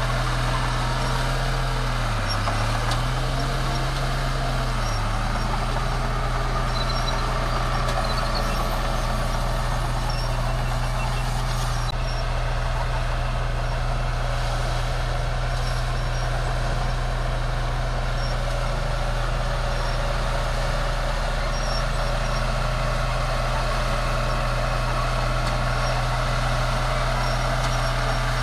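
Bulldozer's diesel engine running steadily under load, its pitch dipping briefly about two seconds in and again near five seconds in.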